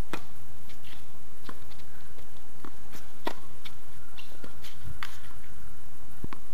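Tennis ball struck by rackets and bouncing on a hard court in a rally, starting with a sharp crack of the serve, then a string of separate hits and bounces, with the players' footsteps on the court.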